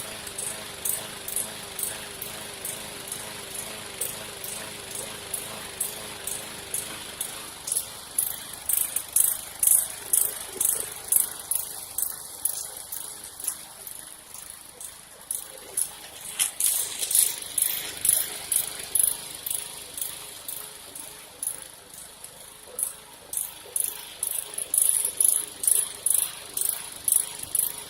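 Lawnmower's small engine running, heard as a rhythmic mechanical clicking rattle, a few clicks a second, growing louder in stretches.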